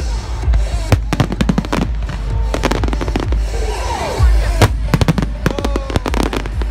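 Aerial fireworks shells bursting: a dense, irregular run of sharp bangs and crackles, several bursts often coming close together.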